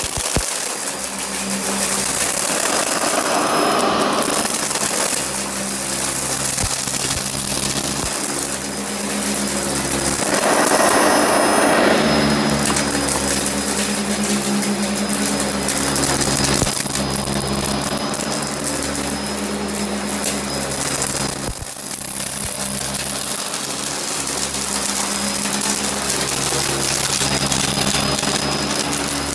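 Sanitaire commercial upright vacuum running on carpet with a steady motor drone. Twice, about three and about ten seconds in, it turns louder and noisier as it sucks up plastic beads and lint.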